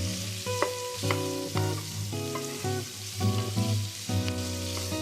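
Beef kielbasa, green bell pepper and onion sizzling in butter and olive oil in a pan, with a few utensil clicks against the pan as it's stirred. Background music with a steady bass runs under the frying.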